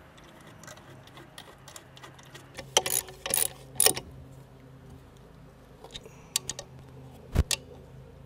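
Socket ratchet clicking as bolts are tightened to fix the pump's bracket to the motor, with scattered metal clicks and knocks. The loudest clicks come in a cluster about three to four seconds in, with one sharp knock near the end.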